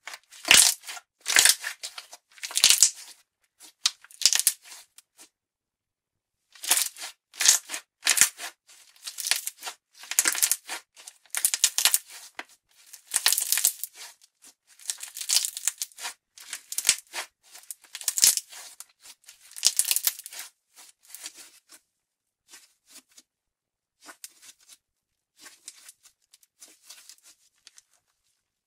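Slime Japan's Starry Night slime being stretched, folded and squeezed by hand, giving irregular bursts of crackling and squishing. The bursts pause briefly about five seconds in, then come thick and loud until about twenty seconds in and grow fainter near the end.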